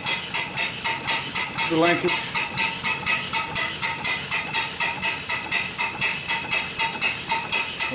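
Converted Deming water pump being turned slowly by a belt as a steam engine, its eccentrics and valve linkage making an even metallic clicking at about three a second.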